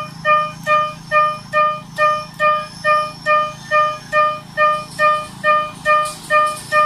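Miniature railroad crossing signal's warning bell ringing "kan kan" over and over, a little over two strikes a second, each strike the same clear tone.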